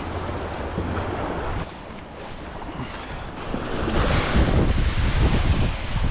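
Wind buffeting the microphone over a steady hiss of rain and water, the gusts growing stronger about four seconds in.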